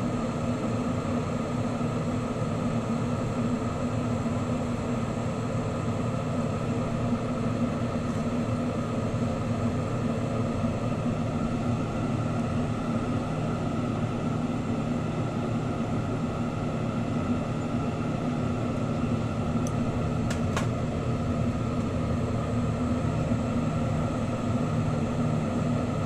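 Lampworking bench torch burning steadily, a constant rushing roar with a low hum underneath as glass is heated in the flame. A couple of faint ticks come about twenty seconds in.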